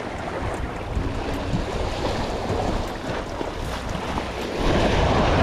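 Wind buffeting the microphone over surf washing against the jetty, swelling louder near the end.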